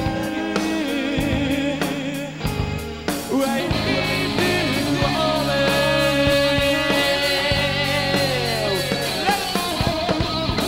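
A pop-punk rock band playing live, with singing over electric guitar and a drum kit. The music gets fuller and louder about three seconds in, then carries long held notes.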